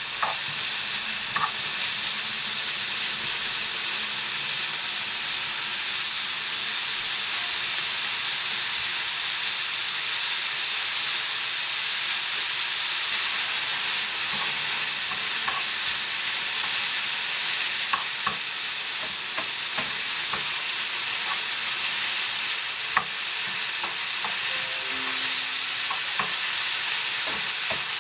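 Diced bacon sizzling steadily in a frying pan as it is stirred with a wooden spoon, with scattered short clicks and pops over the hiss of the fat.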